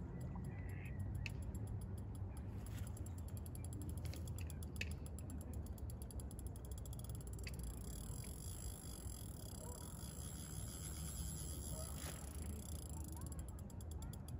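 Fishing reel ratcheting in rapid, even clicks while a hooked carp is played on the rod. The clicking thins out for a few seconds after the middle, then picks up again.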